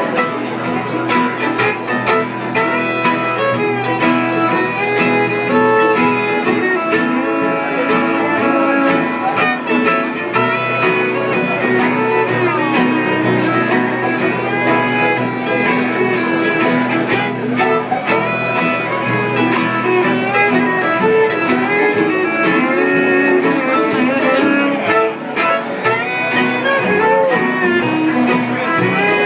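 Live acoustic country band playing an instrumental break, with a fiddle taking the lead over strummed acoustic guitar.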